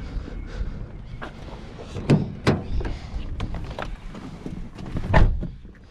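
Knocks and clatter of objects being handled and moved, with two sharp knocks about two seconds in and a heavy thud about five seconds in.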